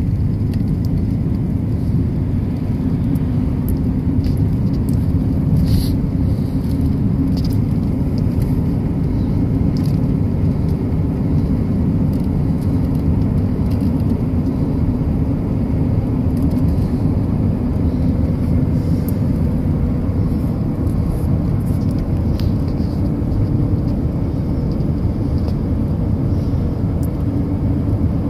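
Steady low rumble of a car being driven, engine and tyre noise heard from inside the cabin, with a few faint clicks.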